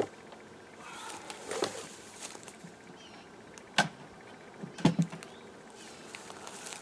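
Wooden beehive frames and boxes being handled: scraping about a second in, then a sharp knock near the middle and two more close together a second later.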